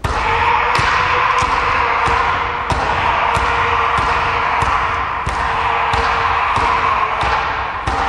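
Wooden practice sword striking an upright log in Jigen-ryū tategi uchi: a fast, even train of sharp wooden knocks, about three every two seconds. The striker's long, unbroken high kiai shout is held under the blows.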